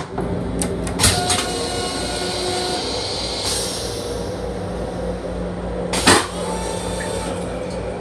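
Steady hum and low rumble of a Long Island Rail Road M7 electric railcar, heard from inside its restroom, with sharp knocks about a second in and about six seconds in.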